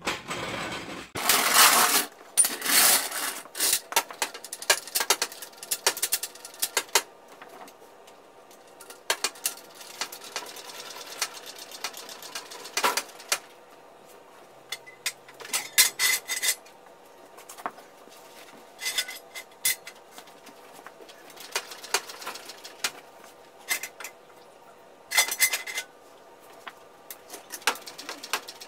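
Irregular metallic clanks, clinks and rattles of tools and jacking gear being handled as a car is jacked up to get its wheels off the ground, with the loudest clatter in the first couple of seconds and again near the end.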